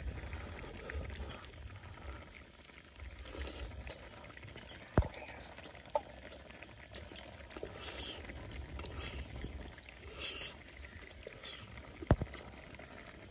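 Insects, crickets or similar, chirring steadily and high in the background. A few sharp clicks stand out about five seconds in, a second later, and loudest near the end.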